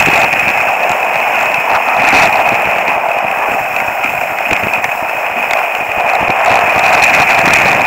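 Steady loud rush of wind over a helmet-mounted action camera's microphone while skiing fast downhill, mixed with skis sliding and scraping on packed snow.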